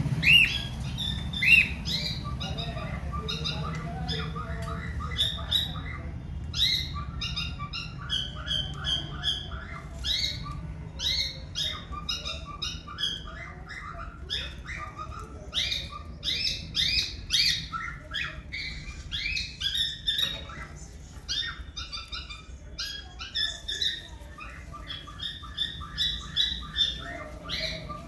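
Cockatiels chirping and chattering in a cage: a steady stream of short, quickly repeated chirps with louder calls standing out every few seconds.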